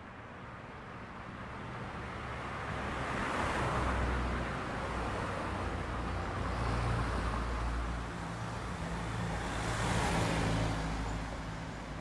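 Road traffic passing by, its noise swelling and fading about three times as vehicles go past.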